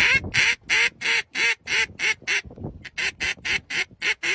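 A duck call blown in a rapid string of loud, even quacks, about three or four a second, with a short break about two and a half seconds in before the quacking carries on.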